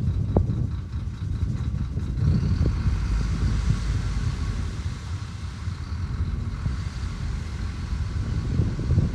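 Heavy diesel engine of earthmoving machinery running with a steady deep rumble, with a faint whine over it from about two seconds in.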